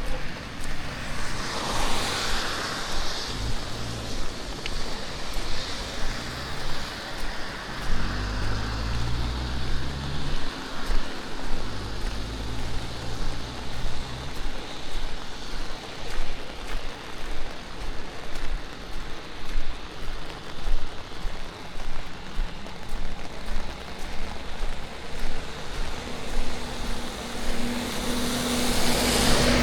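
Steady rushing noise, with a low hum coming and going about a third of the way in and again near the end.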